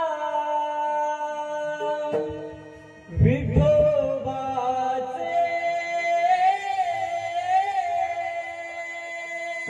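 Male voice singing a Marathi devotional abhang in long held notes over instrumental accompaniment, with a loud low accompaniment entry about three seconds in and a wavering vibrato on a sustained note later on.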